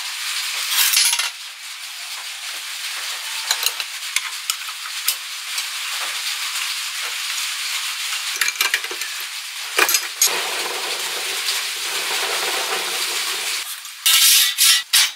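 Small metal parts clicking and clinking now and then as a washer, nut and steel blade are fitted by hand onto a gearbox shaft, over a steady hiss. About fourteen seconds in, a much louder harsh noise starts abruptly.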